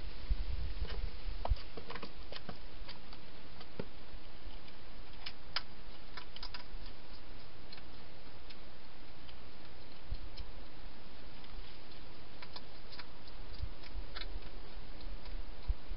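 A hedgehog feeding and moving about inside a plastic feeding box: scattered, irregular small clicks and ticks over a steady hiss, with a few low bumps in the first couple of seconds.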